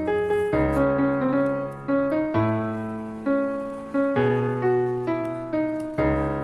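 Background piano music: chords and single notes struck one after another, each fading away before the next.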